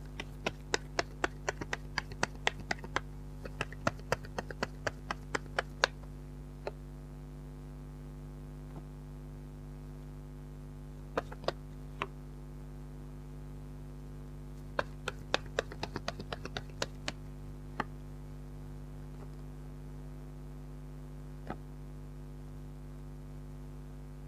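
Tarot cards being handled and shuffled, heard as runs of light, sharp card clicks and taps. A dense run fills the first six seconds, a few more come near the middle, and another burst follows a few seconds later. A steady low electrical hum runs underneath.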